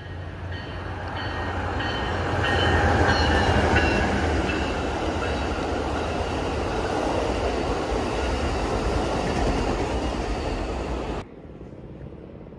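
Amtrak Pacific Surfliner passenger train approaching and passing at speed: it grows louder over the first few seconds while a bell dings about twice a second, then the bi-level cars rush past with a steady loud rumble of wheels on rail. The sound cuts off abruptly near the end.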